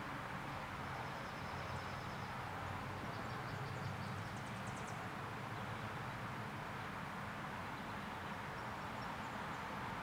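Steady background rumble and hiss of distant traffic, with faint rapid series of high-pitched bird chirps about a second in and again around four to five seconds in.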